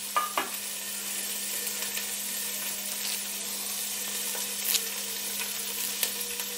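Garlic, green chillies, ginger and fennel seeds sizzling steadily in hot coconut oil in a pan, with a few faint ticks as curry leaves go in, over a steady low hum.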